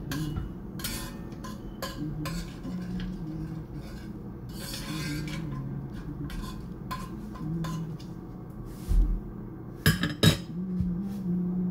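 A spoon stirring sofrito, ham and bay leaves in a pot, scraping and clinking against the pot, with a louder clatter about ten seconds in.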